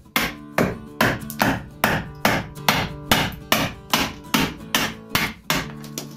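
Steady, rhythmic hammer blows on a wood chisel, about two and a half strikes a second, as the chisel chops out the core of a split log. Acoustic guitar music plays underneath.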